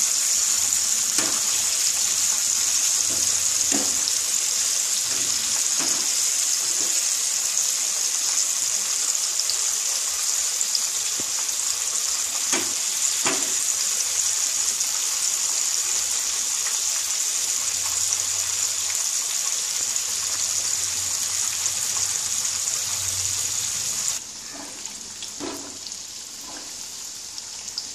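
Battered chicken pieces deep-frying in hot oil in a kadai: a steady high sizzle, with a few light taps of a wire spider skimmer against the pan. Near the end the sizzle drops suddenly to a quieter level.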